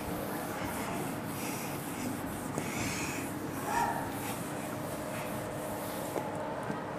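Whiteboard eraser wiped across a whiteboard in a series of rubbing strokes.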